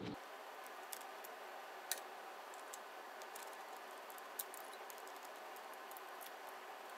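Faint, scattered light clicks and taps of a metal scale bar and small parts being handled against a planer's steel housing, the clearest about one, two and four and a half seconds in, over quiet room tone.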